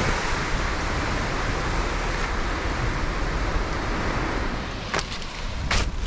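Ocean surf washing on a beach, a steady rush, with a couple of short sharp scuffs or clicks near the end.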